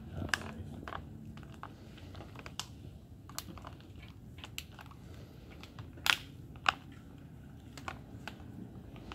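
Small bicycle ridden across a concrete floor: scattered light clicks and rattles over a low rolling rumble, with two sharper clicks about six seconds in.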